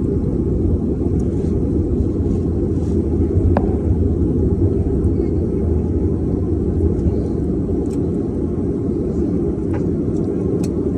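Turboprop airliner's engine and propeller running at low power during taxi, heard inside the cabin as a steady low rumble. A single small click about three and a half seconds in.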